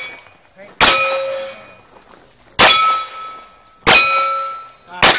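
Four handgun shots fired at steel targets, about one to two seconds apart, the last near the end. Each shot is followed by the ringing of a struck steel plate, and each plate rings at its own pitch.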